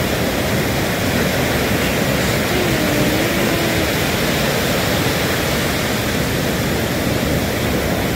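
Ocean surf: waves breaking and washing up a sand beach, a steady loud rush of water.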